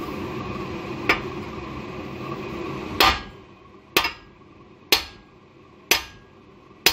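Hammer blows on the end of a rear-axle pinion, driving the press-fitted pinion out of the differential housing. A light knock about a second in is followed by five heavy metal strikes about one a second, each ringing briefly.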